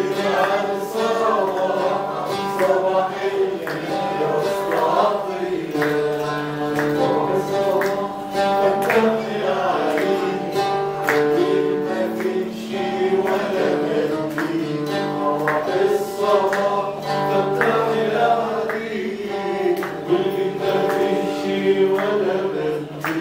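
Live music from a solo performer: a guitar-like string instrument strummed and plucked in frequent short strokes under long held melody notes.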